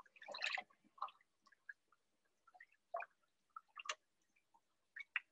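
Faint, scattered small clicks and taps of kitchen work, with a brief rustle just after the start.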